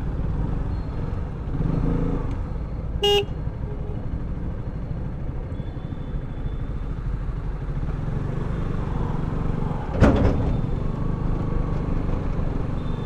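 Steady rumble of a vehicle moving on the road. A brief horn toot sounds about three seconds in, and a sharp thump comes about ten seconds in, the loudest moment.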